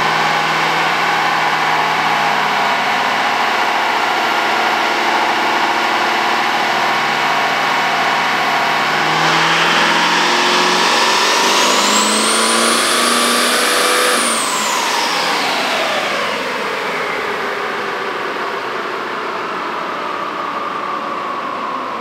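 Compound-turbocharged L5P Duramax 6.6-litre V8 diesel running on a chassis dyno. About nine seconds in it comes up on power and the turbochargers' whistle climbs to a very high pitch, holds for a couple of seconds, then winds slowly down as the engine backs off.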